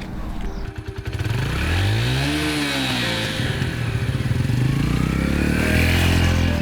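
A motor vehicle's engine revving, its pitch rising and falling once, then running at a steady pitch.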